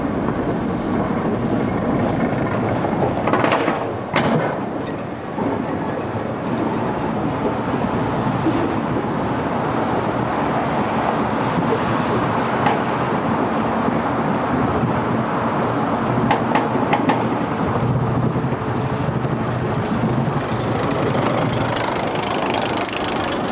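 Balder wooden roller coaster train climbing its lift hill: a steady rattling clatter of the cars on the track, with a few sharper clicks now and then.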